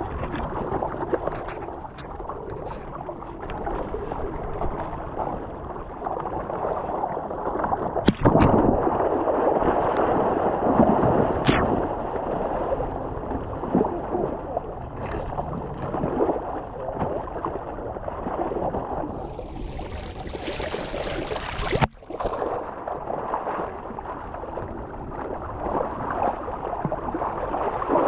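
Water splashing and gurgling, a continuous noisy churn that changes abruptly about 8 and 22 seconds in.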